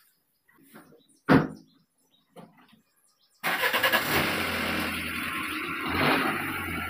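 Suzuki Swift hatchback: the driver's door shuts with a single thud about a second in, then the engine starts about three and a half seconds in and keeps running steadily.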